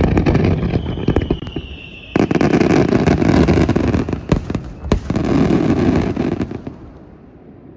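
Fireworks going off: a sharp bang, then a whistle that drops slightly in pitch for about two seconds. After that comes a dense stretch of crackling bursts with several sharp bangs, which dies away near the end.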